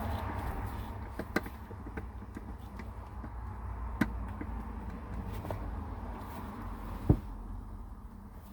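Hands working on a car's gear shifter: scattered clicks and knocks over a low rumble, with three sharper knocks spaced a few seconds apart.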